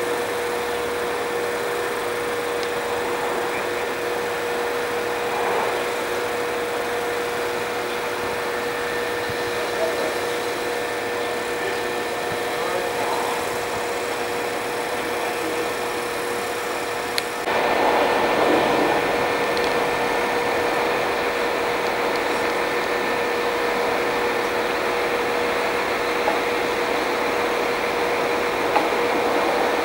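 Serbian Railways class 711 diesel multiple unit standing idle, its diesel engines and fans running with a steady hum and a constant whine. The sound gets a little louder just past halfway through.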